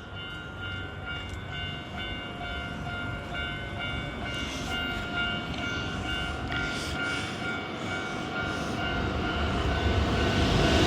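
Japanese level-crossing warning bell ringing with its repeated 'kan-kan' tone. The rumble of an approaching Hankyu Kyoto Line train grows steadily louder over it toward the end.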